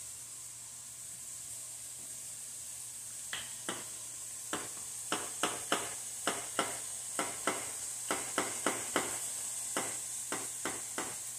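Diced steak sizzling steadily in a frying pan. From about three seconds in, a run of sharp clicks, two or three a second, as the red cap of a seasoning bottle is twisted.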